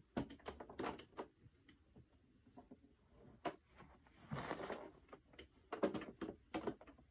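Handling noise from dressing a figure: scattered soft knocks and clicks, with a longer rustle of fabric about four seconds in, as a twisted costume is taken off and refitted.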